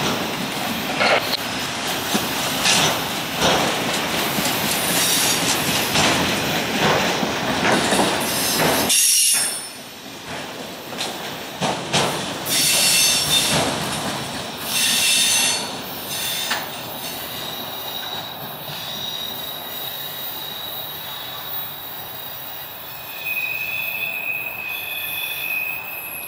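Autorack freight cars rolling past, wheels clattering and clicking over the rails. The rolling noise drops sharply about nine seconds in. Through the second half, thin, steady, high wheel squeals sound over the quieter rumble as the last cars go by.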